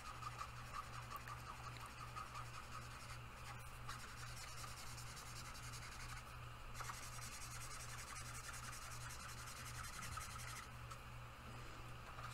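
Marker tip rubbing back and forth on paper as a drawing is coloured in, faint, in stretches with a few short breaks.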